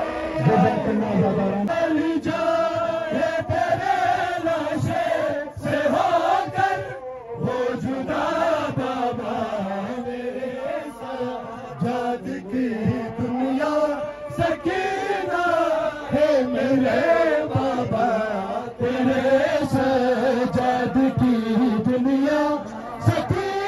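A group of men chanting a Shia noha (mourning lament) in unison, led over a loudspeaker microphone, with sharp rhythmic slaps of matam (hands beating the chest) keeping time.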